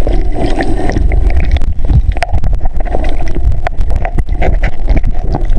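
Muffled underwater sound from a camera held under the water: a loud, dull low rush of moving water with many small clicks and crackles.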